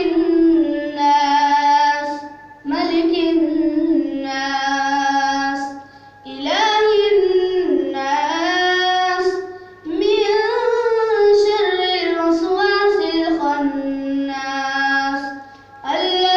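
A boy singing a naat solo and unaccompanied, in long drawn-out phrases that slide between notes. Short pauses for breath come about every three to four seconds.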